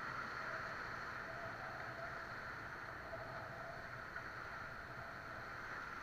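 Whitewater rushing around an inflatable river raft as it runs a rapid, a steady wash of noise that eases off gradually as the raft reaches calmer water.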